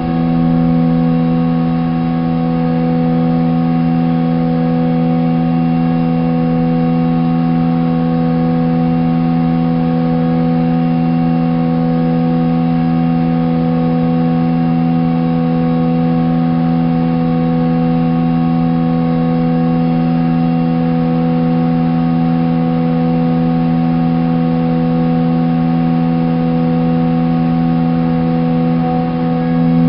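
A steady drone of several held tones; the pitches shift about as it begins and again near the end.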